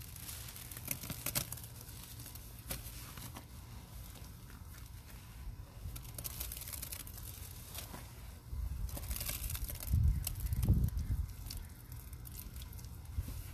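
Rubber-gloved hand squeezing and crumbling a wet powder paste, giving crackly crumbling sounds in scattered clusters. From about two-thirds of the way in, a low rumble swells and is briefly the loudest sound.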